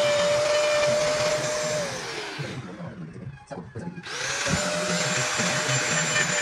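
Handheld electric power carving tool whining steadily. About two seconds in it is switched off and winds down. A few light knocks follow, and about four seconds in it is switched back on and spins up to speed again.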